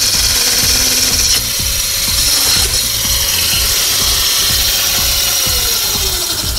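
Homemade pole saw's 24-volt electric motor running at speed, driving a small geared cutting disc against a branch with a rasping whine. Near the end its pitch falls as the motor winds down.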